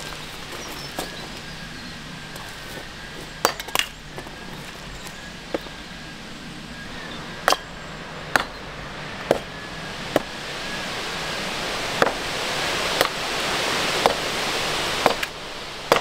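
Sharp wooden knocks, about a dozen at uneven intervals, as wooden tripod-support pieces are set in place and tapped. A rustling hiss swells in the second half.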